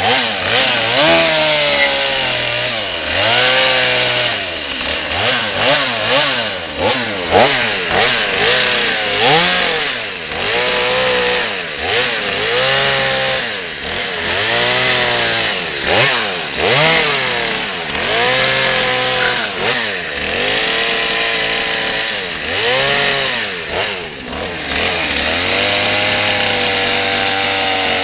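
Two-stroke chainsaw carving into a wooden log, revving up and down over and over, with the pitch rising and falling about every second and a half. Near the end it holds at a steady high speed.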